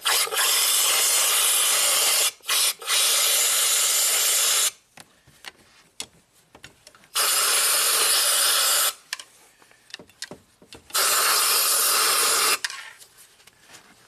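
Compressed-air blow gun hissing in about four bursts of one to two seconds each, switched on and off abruptly, blowing standing water out of flooded ignition-coil wells.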